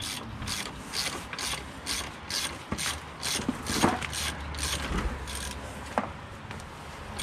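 Hand socket ratchet clicking in steady back-and-forth strokes, about two a second, as a bolt on a mini excavator's track frame is tightened.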